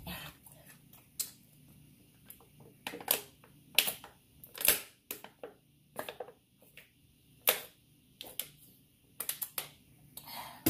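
A person's mouth making short, irregular clicks and smacks, with a few sharp breaths, just after eating very spicy noodles.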